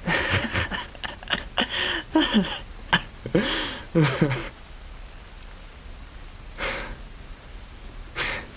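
Steady rain ambience. Soft breathy voice sounds ride over it in the first half, and there are two short breaths near the end.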